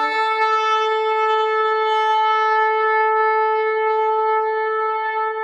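A long, spiralled shofar blown in one long, steady blast, holding a single bright note rich in overtones; a lower tone underneath dies away within the first second.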